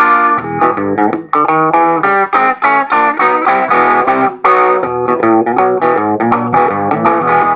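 Electric guitar played in a boogie style, fast runs of single notes and short chords changing several times a second.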